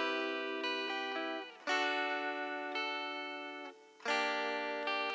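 Guitar intro music: chords struck about every two seconds, each left ringing and fading, with no bass below.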